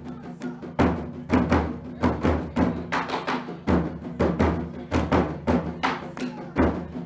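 Background music with a quick, steady drum beat over held low bass notes.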